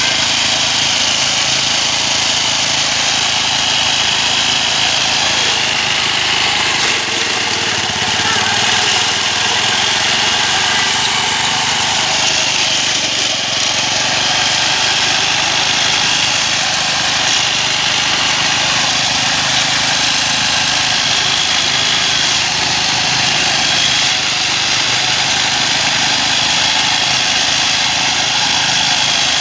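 Old small engine of a homemade push grass mower running steadily while mowing uneven, overgrown ground.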